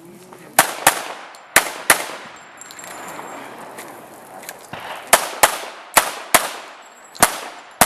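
Pistol shots fired in quick pairs, about ten shots in all, each pair about a third of a second apart, with a short echo after each shot.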